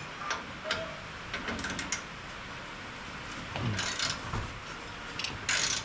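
Hand-tool work on a baler's rusty bolts: scattered small metal clicks and clinks, with two short, louder rasping sounds about four and five and a half seconds in.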